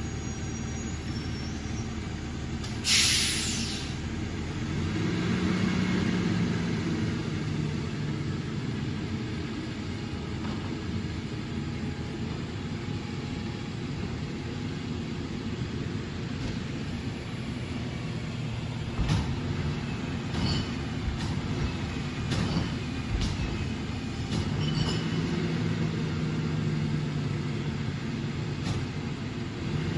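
Rear-load garbage truck idling at the curb while the collector works at the back, with a sharp burst of air hiss about three seconds in. The diesel engine revs up and settles twice as the packer hydraulics cycle. Several sharp metal knocks from the carts and hopper come in the second half.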